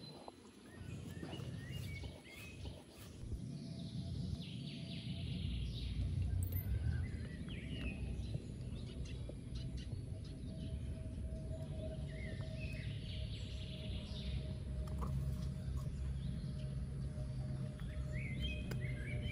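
Birds chirping in short high calls, with a chattering burst twice, over a steady low outdoor rumble.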